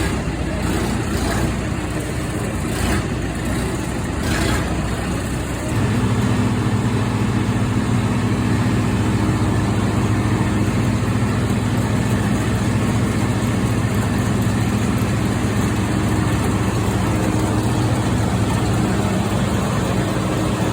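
Engine of an old Clayson M122 combine harvester running. About six seconds in, a steady low engine note comes in suddenly and louder, and holds even.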